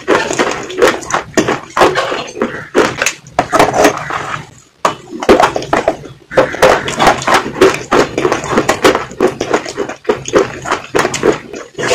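Close-miked mouth sounds: a rapid, dense run of wet clicks, smacks and crackles from lips and saliva, pausing briefly about four seconds in.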